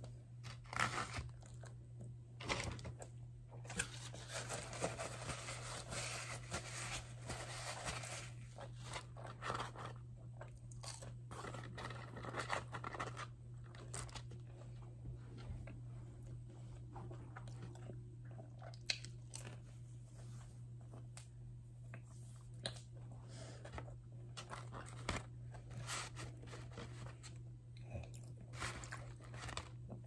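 Close-miked eating: biting into and chewing a breakfast croissant sandwich and a crunchy fried potato piece, with sharp crunches, wet chewing and mouth clicks. A steady low hum runs underneath.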